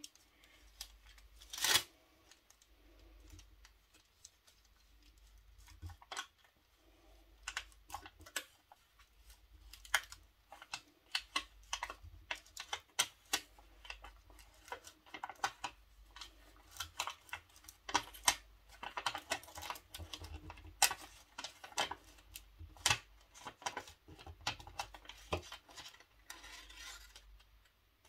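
Transfer tape being peeled away from the backing sheet of a cut vinyl decal: irregular small crackles, clicks and paper rustles, sparse at first and growing dense after about ten seconds.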